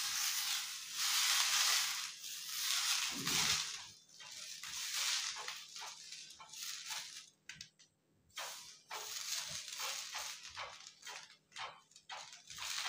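Cotton cloth rubbed over a hot, oiled cast-iron dosa tava, a swishing hiss that runs continuously for the first few seconds and then comes in separate short strokes about one to two a second. The oil is being wiped thin over the hot iron before the batter is poured.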